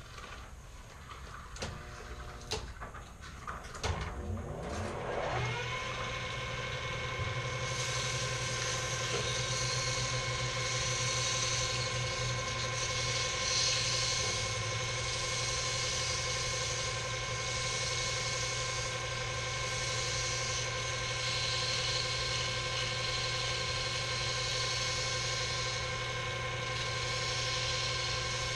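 Small benchtop metal lathe: a few clicks and knocks, then the motor starts about five seconds in with a rising whine and runs on steadily with a whine and hum. From about eight seconds a wavering hiss joins, as something is held against the spinning workpiece.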